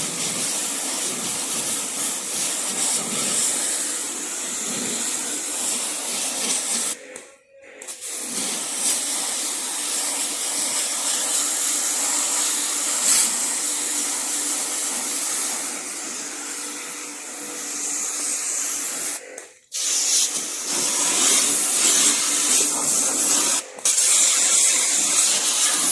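Jet pump spraying a high-pressure water jet onto the very dirty coil of a window air conditioner to clean it. The spray hisses steadily, stopping briefly about a third of the way in, again past the middle, and once more for an instant near the end.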